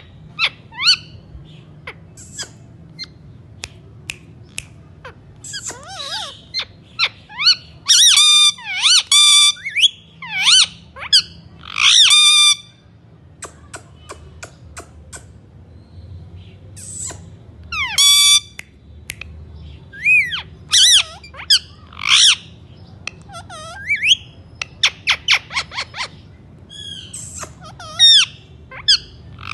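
Indian ringneck parrot calling: shrill squawks and chirps in repeated bursts with pauses between them, and a run of rapid clicks in the later part.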